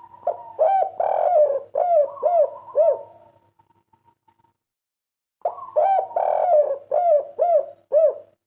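Spotted dove (derkuku) cooing its 'kuk 3' song: two phrases of quickly repeated, arching coo notes, each lasting about three seconds, with a pause of about two seconds between them.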